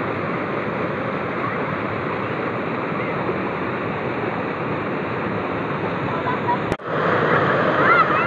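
Steady rush of river water pouring over a concrete weir. It breaks off briefly about seven seconds in and comes back a little louder.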